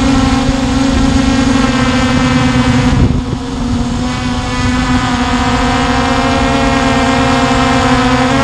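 Hubsan H501S quadcopter's brushless motors and propellers humming steadily in flight, heard from the camera mounted under the drone. The hum dips briefly about three seconds in, then steadies.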